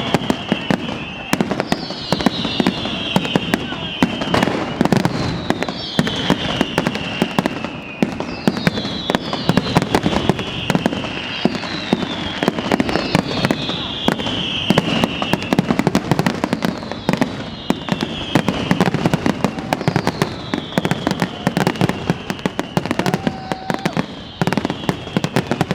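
Fireworks display: a dense, continuous crackle of rapid bangs, with a descending whistle about every two seconds.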